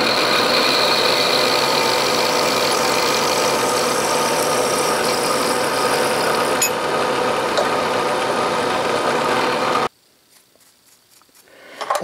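Bridgeport vertical milling machine plunge-cutting with an oiled 1/2-inch end mill into round bar stock: a steady, loud cutting and spindle sound with several even tones. It stops abruptly about ten seconds in, leaving near quiet.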